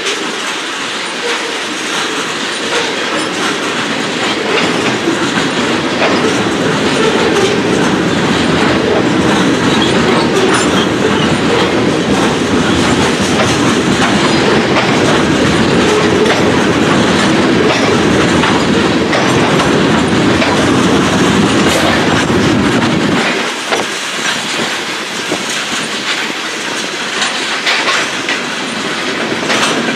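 Oil train's tank cars rolling slowly past, a steady rumble of steel wheels on the rails with scattered clicks. The deeper rumble falls away a little over three-quarters of the way through.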